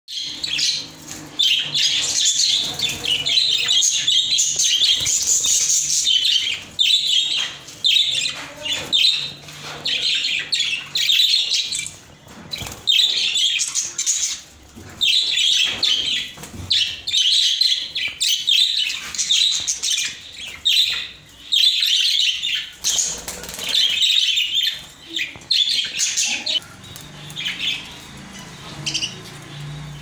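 Several caged budgerigars chattering and chirping busily without pause, the chatter thinning out over the last few seconds.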